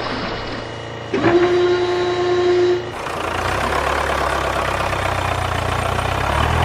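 Vehicle sounds: a horn-like tone sounds for about a second and a half, then a steady engine-like running hum takes over.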